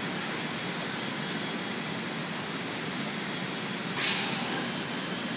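Steady machinery noise in a tile factory hall. A high-pitched squeal sounds briefly at the start and again for about two seconds near the end, with a sharp clank about four seconds in.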